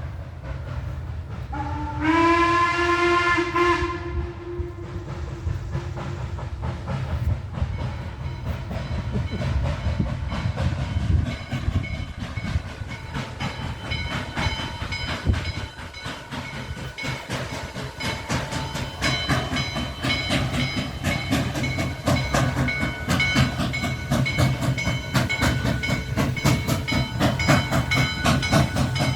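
Western Maryland 1309, a 2-6-6-2 articulated steam locomotive, sounds one whistle blast of about two seconds that slides up in pitch as it opens. Its exhaust beat then quickens and grows louder as it works, with steam hissing.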